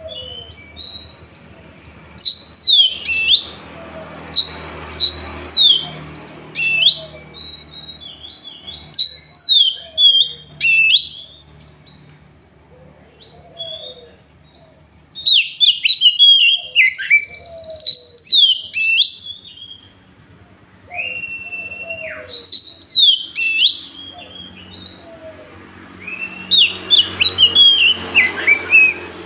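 Oriental magpie-robin (kacer) singing loud, varied phrases of sharp downward-sweeping whistles and chirps in rapid bursts, with short pauses between clusters and one held whistle a little past two-thirds through. These loud bursts are the 'tembakan' (shot) phrases that kacer keepers prize.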